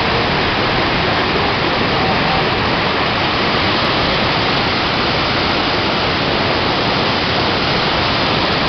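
Loud, steady rush of whitewater from the Colorado River's Fang rapid, heard from the bank right beside it.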